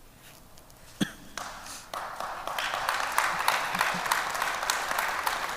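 Audience applauding: a single sharp clap about a second in, then many hands clapping, building up and holding steady.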